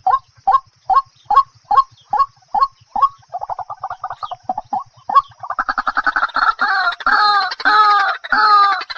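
Birds calling: short calls repeated about two to three times a second, then a quick rapid run of notes about three seconds in, and from about five and a half seconds several birds calling together in louder, overlapping calls that fall in pitch.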